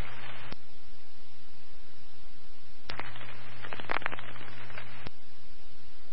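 Radio scanner static on the fire department's radio channel, a steady hiss. About three seconds in, a transmission is keyed for roughly two seconds with no voice on it, only a low hum and crackling clicks.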